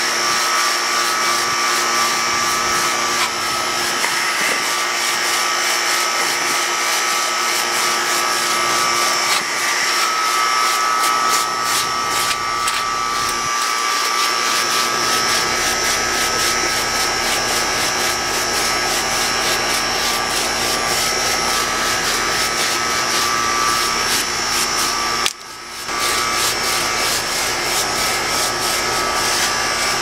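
Handheld electric air-cleaning tool running steadily, a motor whine over a strong rush of air, used to clear dust from a mini split's dirty mesh air filter. The motor cuts out for a moment near the end and starts again.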